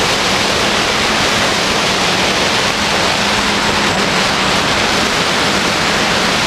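Quadcopter's motors and propellers in flight, heard from its onboard camera: a loud, steady rushing noise with a faint steady hum underneath.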